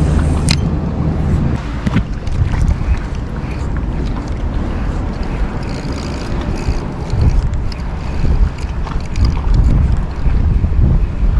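Gusting wind buffeting the camera microphone, an uneven low rumble that rises and falls, with a couple of sharp clicks in the first two seconds.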